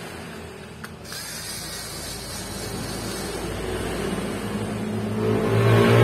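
Cordless electric screwdriver whirring as it backs screws out of a netbook's plastic case. A short click about a second in, then the motor grows louder and is loudest near the end.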